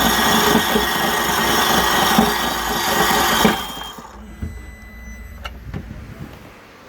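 Electric starter of a 2012 Sea-Doo RXP-X 260 whirring loudly without the engine cranking, stopping suddenly about three and a half seconds in; the owner puts the failure to crank down to a loose flywheel. A few faint clicks follow.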